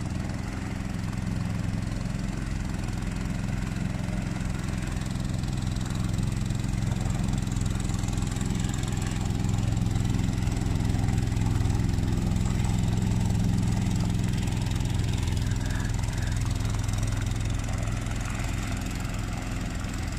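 Boat engine running steadily as a tour boat passes on the river: a low hum that grows louder towards the middle and fades again.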